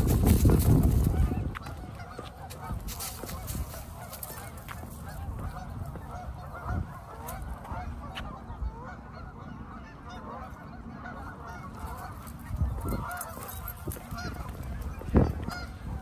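A large flock of Canada geese honking on the lake, many calls overlapping in a steady chatter. A louder crunching of footsteps in dry leaves during the first second and a half.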